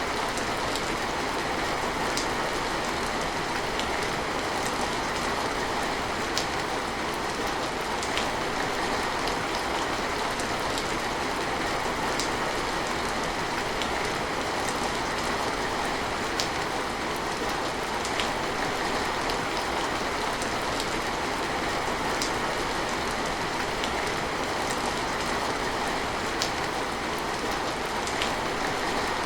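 Steady rain, an even hiss with scattered sharp drop hits.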